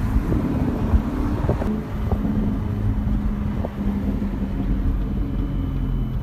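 V8 car engine running at a steady cruise, heard from inside the cabin with road and wind noise and a few light clicks.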